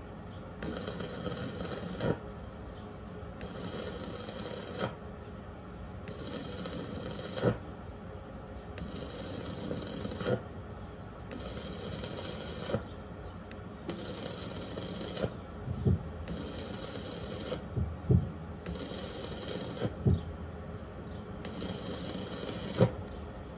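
Stick-welding arc from a 2.0 mm 6013 electrode at about 65 amps on thin square steel tubing, crackling and hissing. It comes in regular bursts of about a second and a half, roughly every two and a half seconds, as the arc runs and breaks in turn, with a sharp click between bursts.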